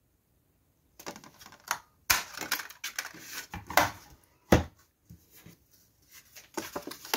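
Handheld paper circle punch being handled and pressed through card: several sharp plastic clacks and knocks with paper rustling between them, the sharpest about two and four and a half seconds in.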